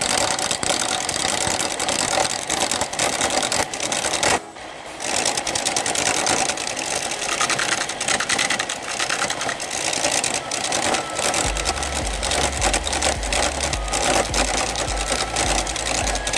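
Turning tool cutting a spinning teak-root blank on a wood lathe: a loud, rough, rapid chattering scrape over the running lathe. It drops out for a moment about four seconds in, then picks up again.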